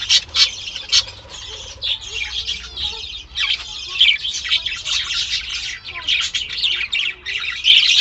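A white budgerigar held down in a hand net, screeching harshly and almost without pause: distress calls as it struggles to get free. The calls are a little quieter for a stretch about a second in and pick up again after.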